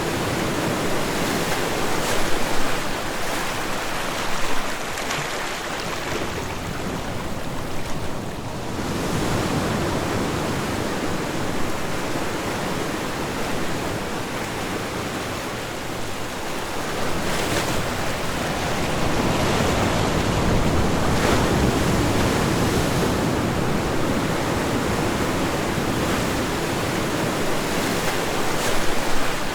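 Ocean waves washing onto a shore: a continuous rush of water that swells and eases every several seconds. A few sharper splashes of breaking crests stand out briefly.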